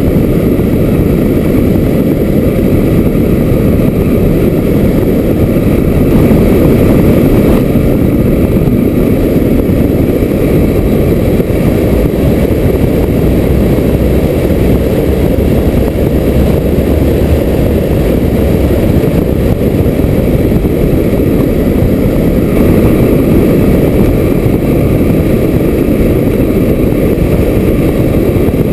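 Wind rushing over a GoPro camera carried on a 4 m ASW 20 scale model glider in unpowered slope-soaring flight: a loud, steady, low rumble of airflow buffeting the camera.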